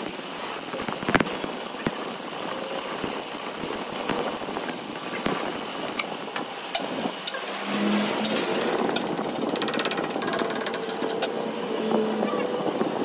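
Electric arc welding on a truck axle shaft: a steady crackling hiss from the arc, with scattered sharp pops.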